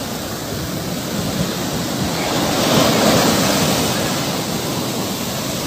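Rough ocean surf breaking and washing up a sandy beach as a steady rush of water. It swells louder about halfway through as a wave crashes in.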